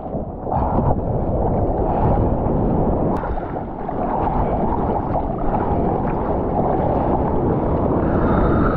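Sea water rushing and sloshing around a GoPro Hero 10 in the surf, mixed with wind buffeting its microphone, as a dense, steady rumble.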